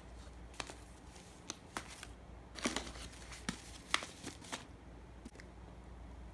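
Merchandise packaging being handled: a string of short rustles, crinkles and light clicks, thinning out after about four and a half seconds.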